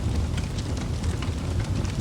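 Wood fire in a fireplace crackling: a steady low rumble of burning logs, with frequent small pops and snaps.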